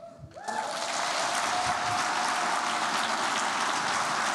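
Audience applause breaking out about half a second in and holding steady, with a long held cheer over it.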